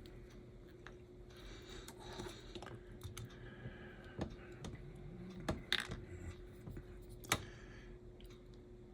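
Light clicks and taps of tiny slot car motor parts being handled on a workbench, with a few sharper clicks, the sharpest about seven seconds in.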